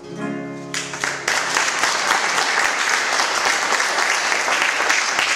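The last held sung note and accompaniment of a love song die away, and an audience breaks into loud applause less than a second in, which carries on.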